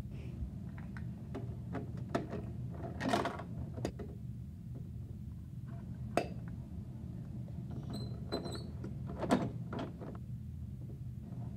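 Plastic clicks and knocks from a Bruder toy garbage truck's rear loader and small plastic toy bins being handled and set down, over a steady low hum. A brief squeak comes about eight seconds in, and the loudest knock follows about a second later.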